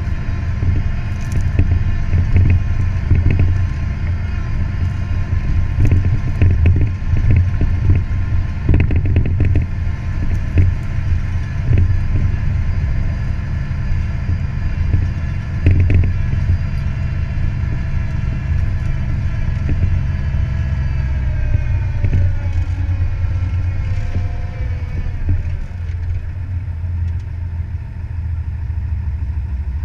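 Fiat 180-90 tractor's diesel engine running under load while pulling a plough, with irregular clanks and rattles from the plough. About two-thirds of the way through, the engine slows, its pitch falling, and it settles to a steadier idle.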